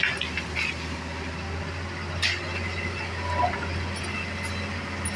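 Hitachi excavator's diesel engine running steadily, with a few sharp knocks or clanks scattered over it.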